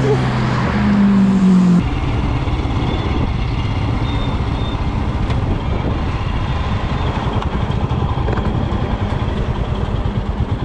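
Royal Enfield Himalayan single-cylinder motorcycle engine running as the bike rolls slowly, heard from the bike itself with wind noise on the microphone. A steady hum in the first two seconds cuts off abruptly.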